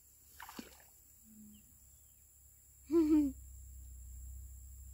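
A single short hooting call, pitched and wavering, about three seconds in, over otherwise quiet outdoor background.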